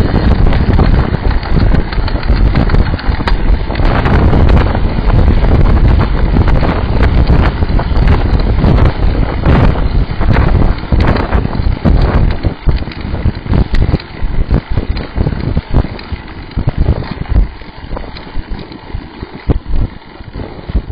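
Heavy wind buffeting on the microphone of a bicycle-mounted camera while riding, with knocks and rattles from the road coming through the mount. It is dense and steady at first, then turns gustier and more broken in the last third.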